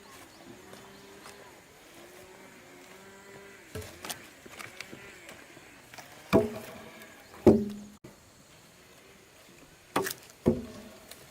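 Woodworking knocks: a few sharp strikes on timber, each ringing briefly, about six and seven and a half seconds in and twice more near the end. Before them a faint tone rises and falls several times over.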